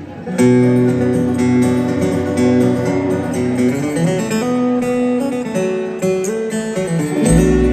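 Bluegrass band beginning a song live, led by acoustic guitar playing the opening melody. A deep bass part comes in near the end.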